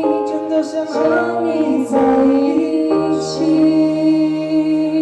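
Live pop music: chords on an electronic stage keyboard, changing a few times, under a woman singing long held notes.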